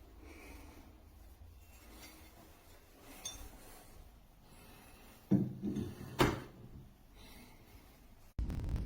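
Faint handling noise of hard objects, with a short clatter about five seconds in and a sharp click a second later. Near the end a steady low rumble starts abruptly.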